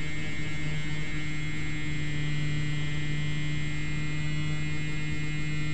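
Electric motor and propeller of a Slowstick RC model plane running at steady cruise power: a constant hum with a thin, higher whine over it.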